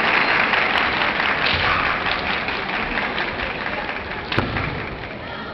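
Audience applause dying away, with a single sharp knock about four seconds in.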